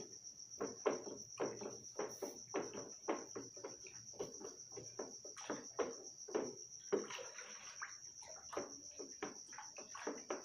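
Wooden spoon stirring liquid in a plastic bucket: a quick, uneven run of knocks and swishes, about two or three a second, as the spoon strikes the bucket's side. A steady high-pitched whine runs underneath.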